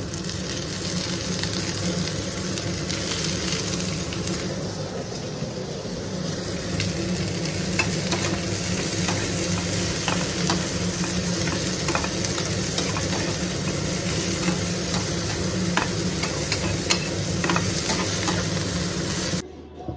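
Food sizzling in a hot pan while being stirred, with short clicks of the spoon or spatula against the pan now and then. It stops abruptly near the end.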